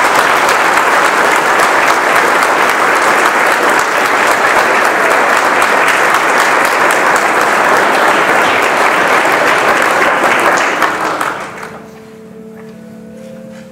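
Congregation applauding, loud and steady for about eleven seconds, then dying away. Quiet instrumental music with held notes begins near the end.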